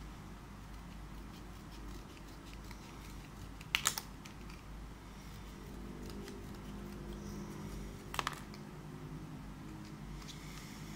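Small scissors snipping through the plastic blister pack of a coin-cell watch battery: a sharp double snip about four seconds in and another about eight seconds in, with faint ticks of the card being handled between.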